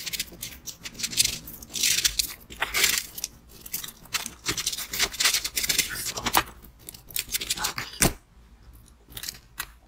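Hands pressing and packing a mound of shaved ice: crisp crunching and rustling in uneven bursts, with one sharper crack about eight seconds in.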